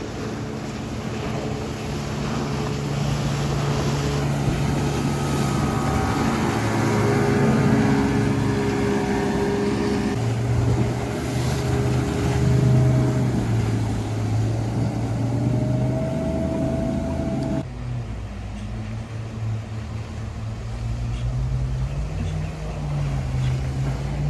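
Motorboat engines running as boats pass, several steady engine notes overlapping and shifting in pitch. The sound changes abruptly about three-quarters of the way through.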